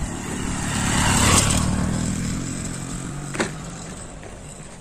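Small motorcycle riding past on a rough dirt road, its engine growing louder to a peak just over a second in, then fading as it moves away. One sharp click about three and a half seconds in.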